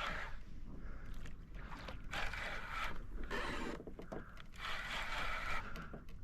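Fishing reel being cranked to bring in a hooked fish, a rough scraping whir in several bursts of about a second each with short pauses between.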